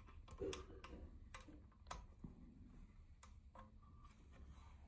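Faint, irregular light clicks and ticks of small 4 mm screws and a hex key being handled and fitted into a metal footplate mounting bracket.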